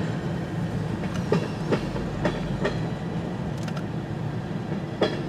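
Long CN freight train rolling slowly past, a steady rumble with its wheels clicking over rail joints every half second or so.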